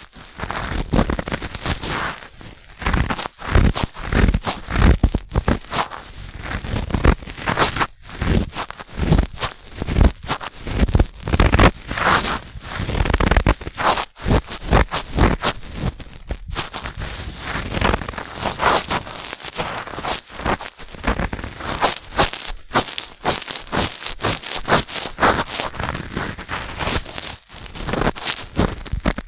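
Cotton swab rubbing and scraping inside a binaural microphone's silicone ear, very close and loud, in a continuous run of irregular scratchy strokes.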